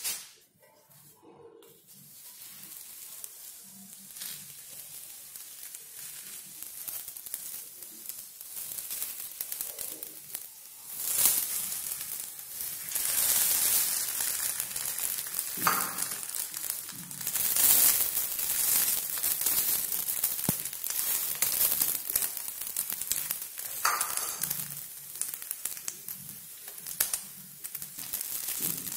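Oil sizzling in a stainless steel frying pan as an egg-stuffed roti fries in it. The sizzle starts faint and grows clearly louder about eleven seconds in, with a couple of brief knocks.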